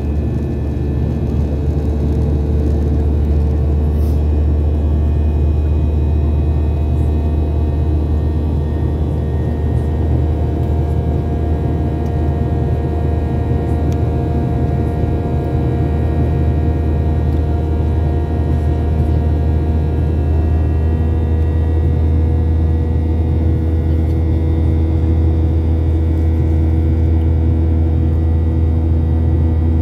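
Steady cabin noise of a Ryanair Boeing 737-800 climbing after take-off: a deep, even rumble from the jet engines and airflow, with several faint steady tones above it that drift slowly in pitch.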